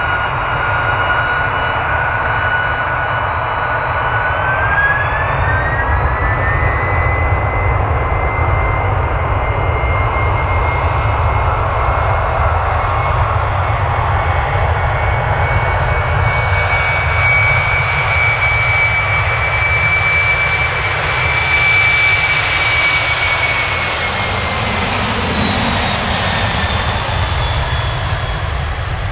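Boeing 767-300's twin jet engines whining over a low rumble as the airliner rolls along the runway. The whine rises in pitch about four to six seconds in, holds steady, and glides down near the end as the jet goes past.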